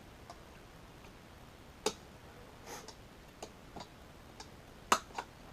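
Plastic zip ties being snipped with cutters: sharp snaps about two seconds in and again near the end, with fainter clicks of handling in between.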